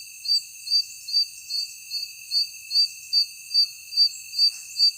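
Night insects calling: one gives short high chirps in an even pulse about two and a half times a second, over a steady high-pitched drone from others.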